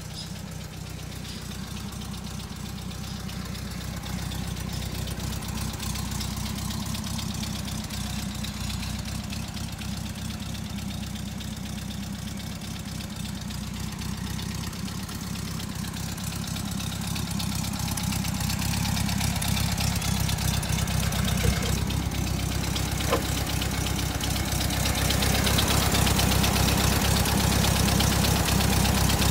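A 1974 Volkswagen Kombi's air-cooled flat-four engine idling steadily. It grows louder over the second half as the microphone nears the open rear engine bay.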